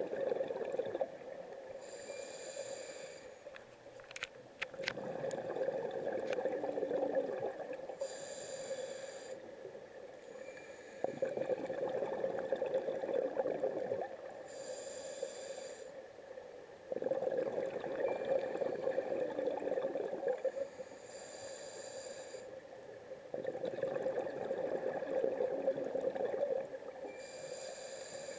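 Scuba diver breathing through a regulator underwater, about one breath every six seconds. Each breath is a short hissing inhale through the demand valve followed by a longer burble of exhaled bubbles. A few sharp clicks come about four seconds in.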